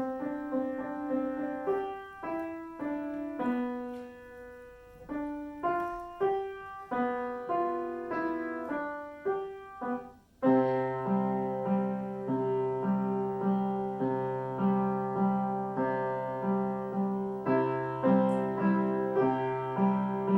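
Solo piano playing: a slow melody of single notes, then about ten seconds in a louder, fuller passage with a held low bass note under a repeating accompaniment.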